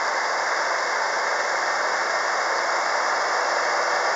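Kubota Lexia MR1000 tractor running steadily under load as it works a straw-covered field with a rear-mounted tiller. The engine and the tilling make a constant, even noise.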